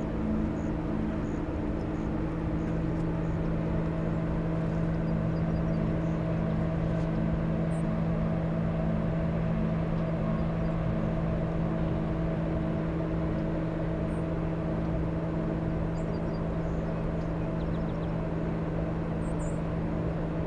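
Steady industrial drone from an aluminium plant: several low hum tones held steady, one of them throbbing at a regular beat, over a constant rushing noise. The recordist takes it for the exhaust of a giant industrial engine at the plant, the low-frequency hum he blames for illness.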